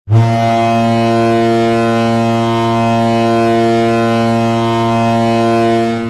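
Ice hockey goal horn sounding one long, deep, steady blast that starts abruptly and holds one pitch.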